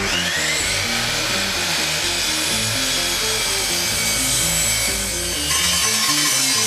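An electric saw spinning up with a rising whine and then running steadily, cutting wood, over background music with a moving melody. It gets a little louder about five and a half seconds in.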